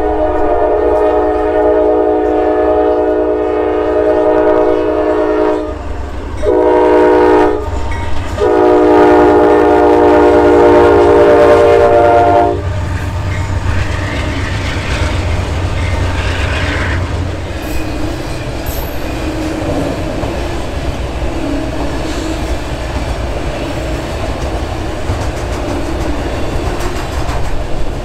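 Freight locomotive air horn blowing for a grade crossing: a long blast, a short one and another long one, stopping about twelve seconds in. Then the freight cars roll past with steady wheel clatter on the rails.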